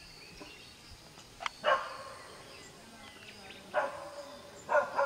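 A dog barking: three short barks, the first about a second and a half in, the next two about a second apart near the end.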